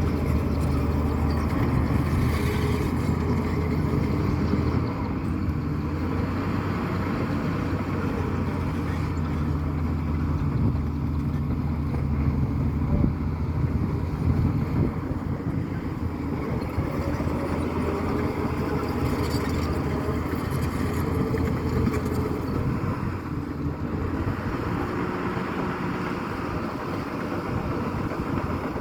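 Heavy construction machine's diesel engine running steadily under load, its pitch shifting slightly now and then.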